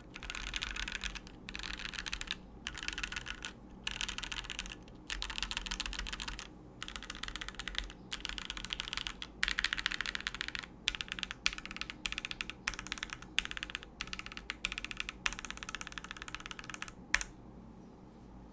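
Typing on a Keychron Q3 mechanical keyboard with its stock Gateron Pro Red linear switches: fast runs of keystrokes in bursts of a second or so, with brief pauses between them. The typing stops a little before the end.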